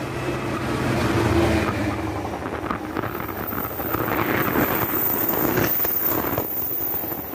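A Class 66 diesel locomotive passing at speed with a freight train: its engine drone is loudest in the first two seconds, then gives way to the rumble and clatter of the wagons' wheels on the rails as the covered vans roll by.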